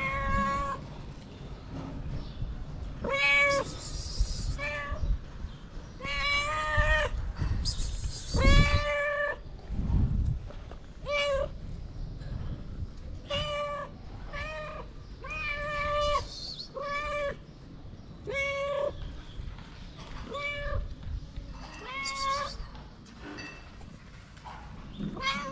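Stray cats meowing over and over, one call every second or two, mostly short with a few longer drawn-out ones: hungry street cats begging for food.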